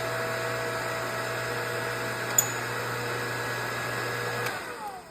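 Electric motor of a press running steadily while pressing the supercharger snout's bearings onto the shaft, then shutting off and winding down in pitch about four and a half seconds in.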